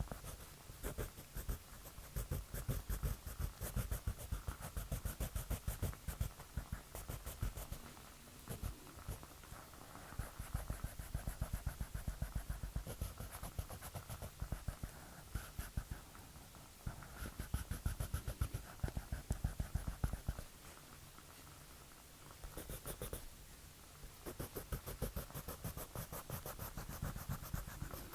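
Drawing strokes on paper: quick scratchy strokes in runs, with short pauses and a longer break about 20 seconds in.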